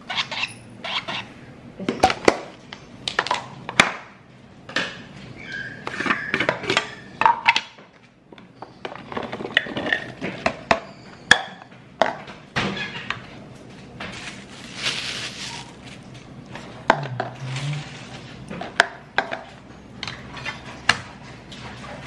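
Irregular sharp clicks and knocks, of things being handled and set down on a table and a kitchen counter, such as a plastic cutting board and blender parts.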